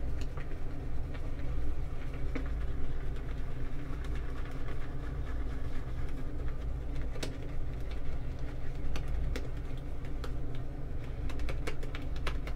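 Boar-bristle shaving brush whisking shaving soap into a lather in a bowl after a little water is added, a steady swishing with a few sharp clicks, several of them near the end.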